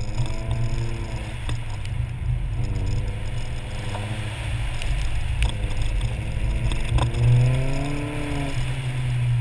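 Nissan 240SX's KA24 four-cylinder engine being driven hard, its pitch climbing and falling several times as it revs and lifts, over a steady drone and wet road noise, with a few sharp clicks.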